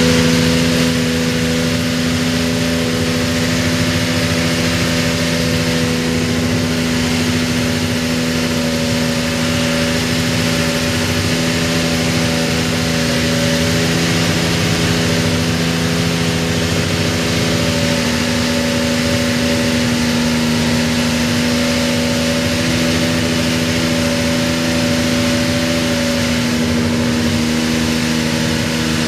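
McLaren MP4/2B Formula 1 car's TAG-Porsche 1.5-litre twin-turbo V6 idling steadily at an even pitch, with no revving.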